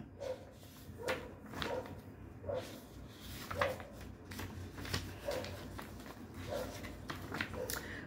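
Faint rustling and handling of paper pages as they are searched through, heard as short scattered rustles and light knocks.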